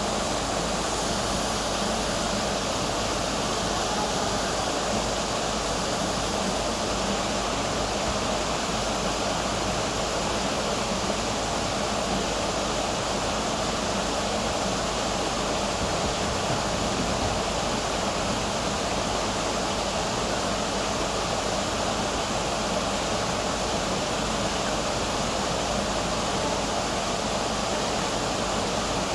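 Waterfall rushing steadily, an unbroken wash of falling water.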